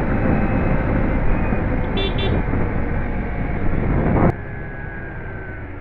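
Yamaha WR155 dirt bike's single-cylinder engine running under way, with heavy wind noise on the microphone; a couple of short high-pitched toots sound about two seconds in, and the noise drops suddenly a little after four seconds.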